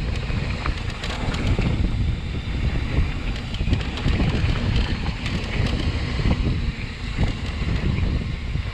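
Wind buffeting the microphone during a mountain bike ride, with a rumble and scattered small clicks and rattles from the bike on the dirt trail.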